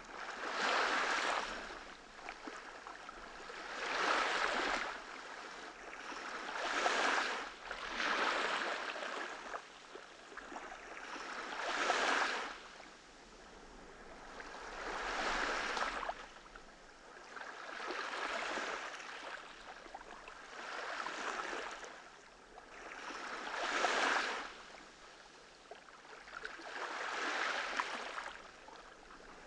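Small ocean waves breaking and washing up on a sandy beach, one about every three seconds, each swelling and falling away.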